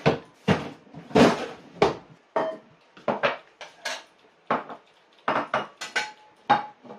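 Kitchen dishes and a stainless steel bowl being handled and set down: a series of separate clatters and clinks, some ringing briefly.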